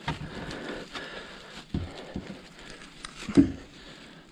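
Footsteps crunching through brush and leaf litter, with a few irregular knocks, the loudest about three and a half seconds in.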